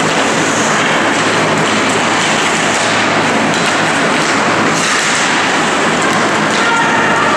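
Ice hockey play in an indoor rink: a loud, steady hiss of skates on ice and crowd noise, with a few faint clicks of sticks and puck.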